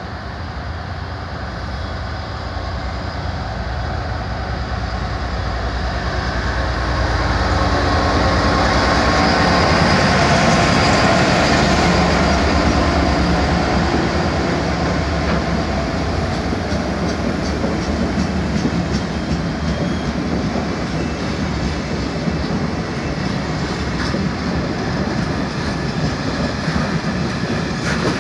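GB Railfreight Class 66 diesel-electric locomotive with a two-stroke V12 engine, approaching and passing, growing louder to a peak about ten seconds in. It is followed by loaded wagons of concrete sleepers and ballast rolling past, their wheels clicking over the rail joints.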